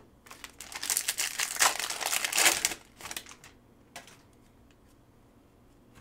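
Foil wrapper of a Panini Mosaic trading-card pack crinkling loudly as it is torn open, for about two seconds, followed by a single click.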